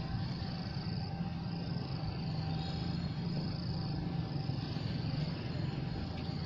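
Insects buzzing in short repeated high-pitched bursts over a steady low rumble.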